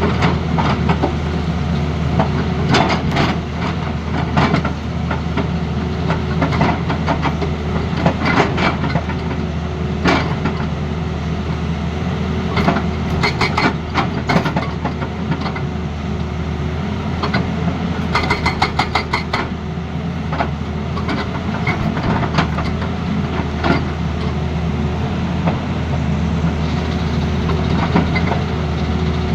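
Tata Hitachi Zaxis excavator's diesel engine running steadily, with scattered sharp metallic knocks and clanks over it and a short run of rapid, evenly spaced strikes about two-thirds of the way through.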